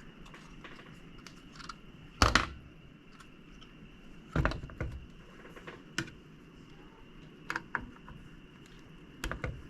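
Scattered light clicks and knocks of small hard objects being handled, the loudest about two seconds in, over a faint steady high-pitched whine.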